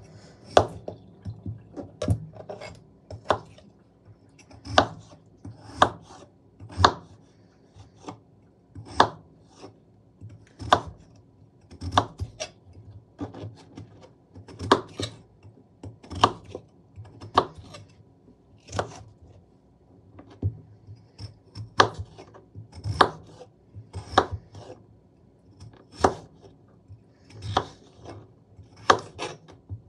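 Kitchen knife cutting peeled raw potatoes, in sharp knocks about one a second at an uneven pace.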